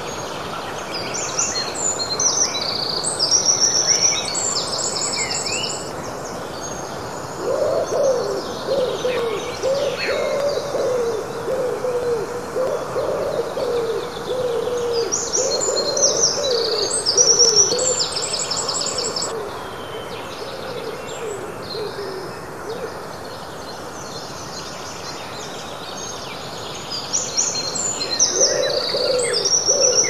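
Early-morning forest birdsong: songbirds sing in bursts of high, quick phrases. A lower hooting call repeats over and over from about a quarter of the way in, fades out after the middle, and comes back near the end.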